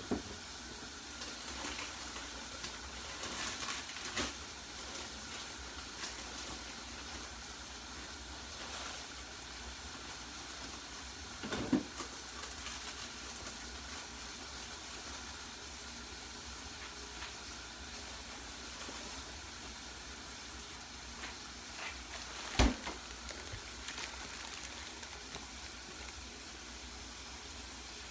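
Pork chops sizzling steadily in a skillet on the stove. Two sharp knocks, one near the middle and one later on, stand out above the sizzle, with a few lighter clicks.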